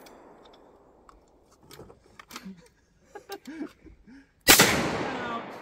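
A break-open single-barrel 12-gauge shotgun being reloaded, its action opened and closed with light clicks and knocks, then one shot of a 3-inch shell about four and a half seconds in, the report dying away over about a second.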